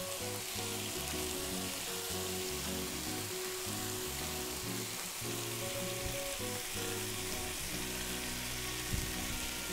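Salt cod, onions and bell peppers sizzling steadily in olive oil in a frying pan on a gas burner, with soft background music underneath.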